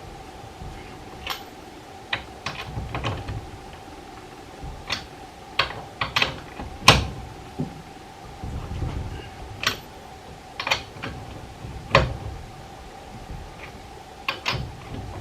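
Irregular clicks and clanks of metal hand tools at work, a dozen or so sharp strikes spread out, the loudest about seven and twelve seconds in, over a steady faint hum.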